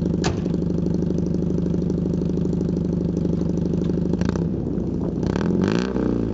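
Honda N600's air-cooled two-cylinder engine idling with an even pulse, then revved up and down in quick blips from about four seconds in. A short click sounds just after the start.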